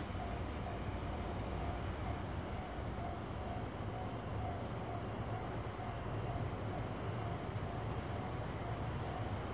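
Night-time outdoor ambience: a steady chorus of chirping insects, crickets, with a faint repeating high note and a low steady rumble underneath.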